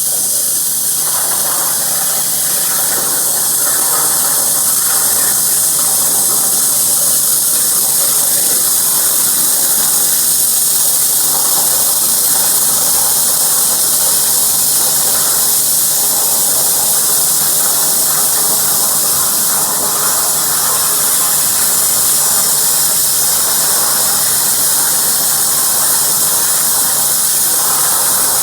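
Hypertherm plasma torch on a CNC cutting table, its arc cutting metal with a steady, loud, high hiss that does not let up.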